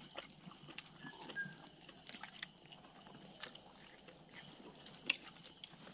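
People eating with their hands: scattered sharp clicks of chewing and lip-smacking, one louder smack about five seconds in, over a faint steady chirring of night insects.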